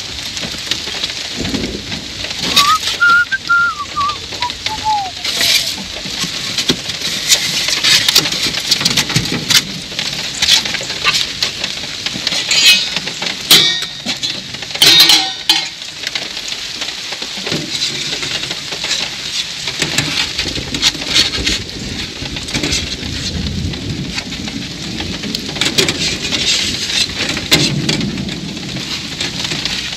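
Rain pattering on the vehicle, with a bird's falling whistled call about three seconds in and scattered knocks and clatter from foam food containers and serving utensils being handled.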